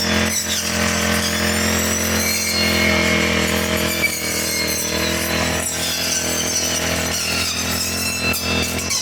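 Four-stroke brush cutter engine running steadily while cutting grass.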